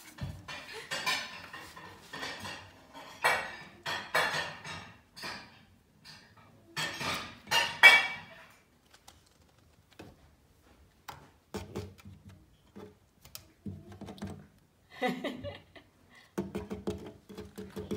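Scraping and clattering knocks, in quick clusters over the first half and scattered later, as a cat scrabbles and paws under a carved wooden cabinet on a tiled floor. Background music with a steady beat comes in near the end.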